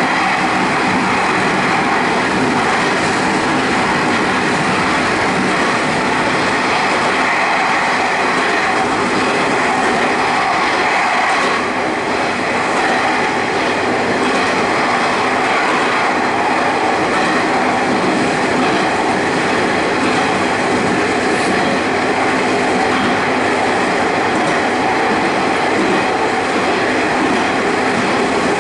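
Sanriku Railway diesel railcar running through a tunnel, heard from inside the car: a loud, steady rumble of wheels on rail and engine, echoing off the tunnel walls.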